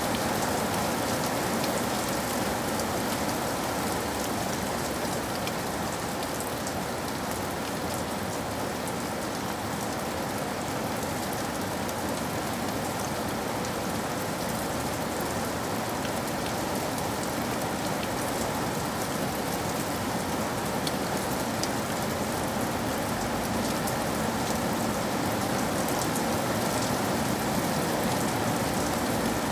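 Heavy rain falling steadily, a constant hiss with many small drop ticks striking a window pane.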